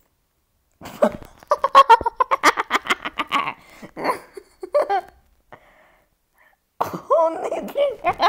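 A person laughing hard in quick repeated bursts for about two and a half seconds, starting about a second in. A few shorter voice sounds follow, and a high-pitched voice comes in near the end.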